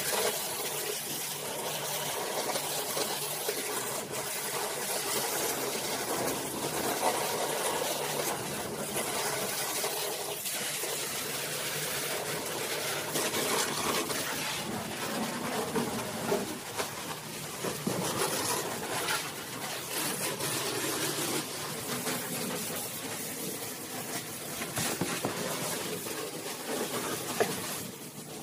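High-pressure washer jet spraying water against a car's body panels and wheel arch, a steady hissing rush that falls away near the end.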